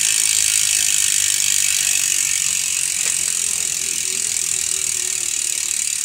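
Sword performance rear hub, a six-pawl freehub, freewheeling as the rear wheel coasts with the pedals still: the pawls make a fast, loud, high-pitched ratcheting buzz that eases slightly over the seconds.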